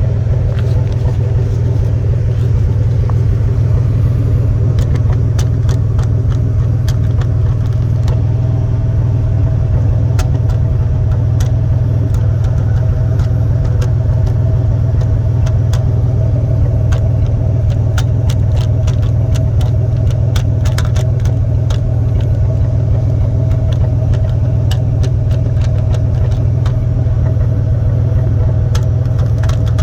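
A 1993 Ford F-150's 4.9-litre (300) straight-six idling steadily, heard at the tailpipe as a deep, even exhaust rumble. Scattered light ticks and clicks run over it.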